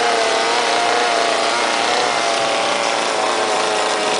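Chainsaw running steadily as it carves into a block of wood, its engine pitch wavering slightly as the cut loads and eases.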